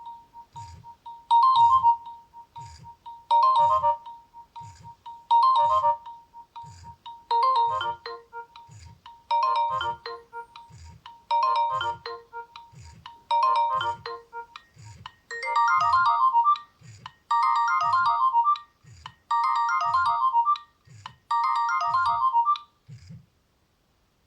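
Nokia N70 ringtone: a short electronic melody repeating about every two seconds over a low beat about once a second. It stops about two seconds before the end.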